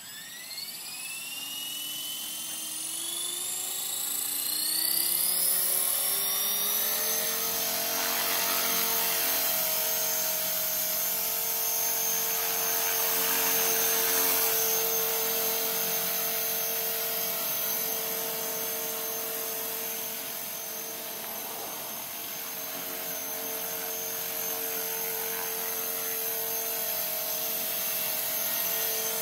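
Blade 450 electric RC helicopter spooling up: the motor and gear whine rises in pitch over about the first seven seconds, then holds steady with the rotor whir as it lifts off and hovers.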